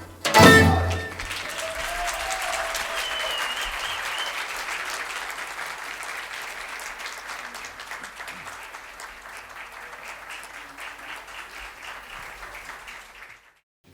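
The last note of a folk band's song, then an audience applauding. The clapping slowly dies away and cuts off near the end.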